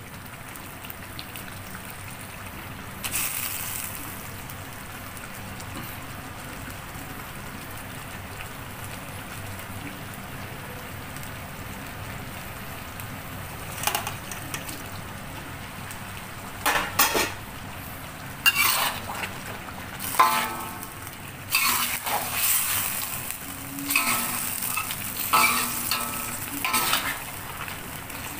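Sambal sauce sizzling steadily in a steel wok. In the second half, fried catfish pieces are tipped in from a plate, and a metal spatula clatters and scrapes against the wok as they are stirred through.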